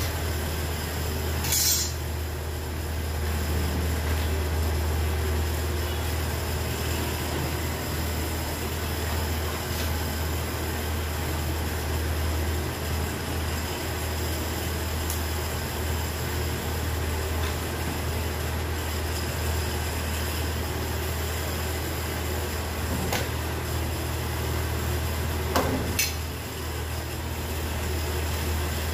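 Steady low machine hum, with a few sharp clicks about two seconds in and twice near the end.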